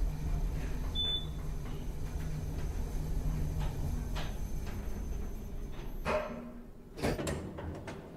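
Lift car running with a low steady hum, a short high beep about a second in, then the lift doors sliding open near the end with two knocks about a second apart.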